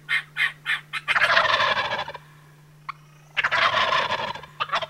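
A turkey gobbling twice, each gobble about a second long, after a few short, evenly spaced calls, with a steady low hum underneath.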